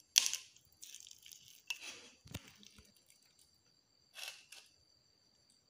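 Boiled potato, roasted tomato and roasted brinjal being squeezed and mashed by bare hand in a steel bowl: a few short wet squishes, the first the loudest, with a soft knock about two seconds in.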